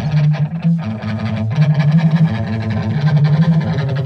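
Live rock band playing an instrumental passage between vocal lines: a bass line moving through held low notes under guitar, with light drum hits.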